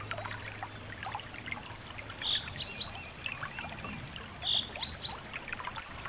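A recording of nature sounds: a stream trickling with small birds chirping. One bird sings the same short phrase twice, about two seconds apart, each time a loud note followed by a few quick high chirps.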